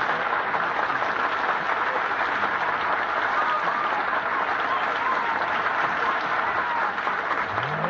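Audience applauding steadily at the end of a fiddle-and-guitar tune.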